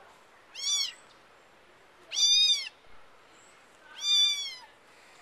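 Young black-and-white kittens mewing: three high-pitched meows, each about half a second long, roughly two seconds apart.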